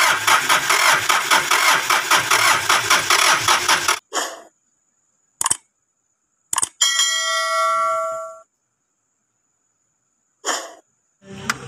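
Mitsubishi 4D56 diesel engine being cranked on the starter motor, a fast even pulsing, which cuts off abruptly about four seconds in. After that come a few short clicks and a brief ringing tone between stretches of silence.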